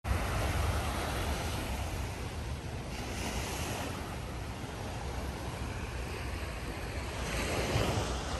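Small waves washing onto a sandy beach, with wind rumbling on the microphone. The wash swells about three seconds in and again near the end.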